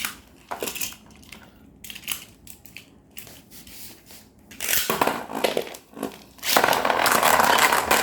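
Beyblade spinning tops in a plastic stadium. First scattered clicks and scrapes, then from about six and a half seconds in a dense, steady grinding and scraping as the tops spin and clash on the stadium floor.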